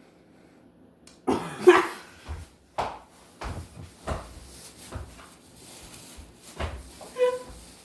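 A person coughing repeatedly, in a string of short, sudden bursts starting about a second in, the first the loudest, while reacting to a mouthful of dry bread.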